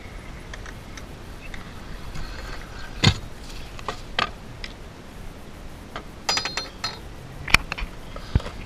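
Freestyle scooter rolling over skatepark concrete, then a fall: the rider and scooter hit the ground with sharp knocks about three and four seconds in. Metal clinks and clattering from the scooter follow, with another hard knock near the end.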